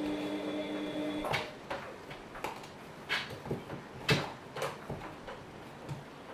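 Small clicks and knocks of a metal spoon and knife against plastic icing tubs and a plate while cupcakes are iced, the loudest about four seconds in. A steady hum runs for the first second or so and then cuts off.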